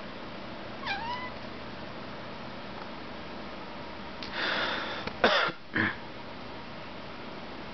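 A cat meows once, briefly, about a second in. After about four seconds comes a breathy hiss, then two sharp, loud bursts in quick succession, the loudest sounds here.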